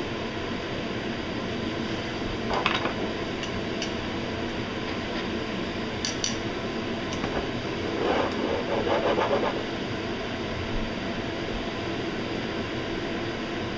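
Steady hiss with a few light clinks, and a short rough scraping sound about eight seconds in, from metal tongs against a ceramic melting pot on the stove.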